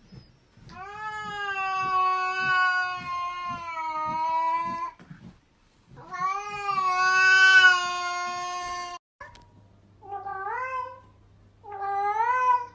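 A cat giving two long, drawn-out yowls, each held at a steady pitch for a few seconds. After a sudden cut, a second cat meows twice in short rising calls over a low steady hum.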